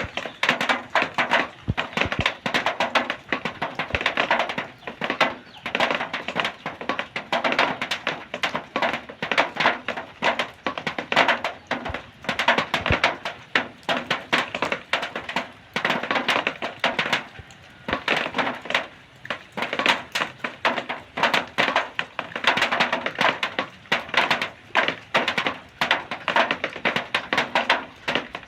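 Rain water pattering on zinc sheet metal: a dense stream of drops tapping the metal, swelling and easing in surges every second or two.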